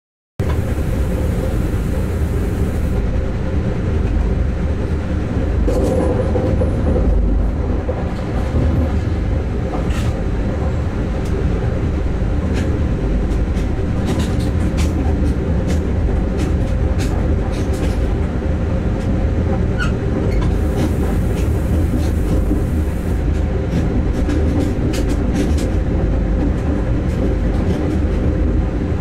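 Siemens ES 64 F4 electric locomotive running on the line, heard from the cab: a steady low rumble of wheels on rail with a steady hum. Scattered sharp clicks and knocks come through now and then.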